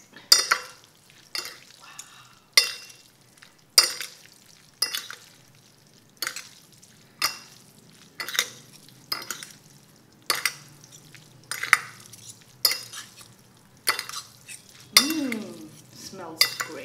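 Two metal forks tossing and mixing cooked instant noodles into a thick sauce on a ceramic plate. The forks strike the plate with a sharp clink about once a second.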